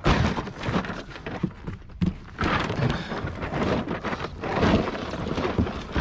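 A cardboard box rubbing and scraping against other junk as it is pushed down into a loaded ute tray, with a sharp knock at the start and another about two seconds in.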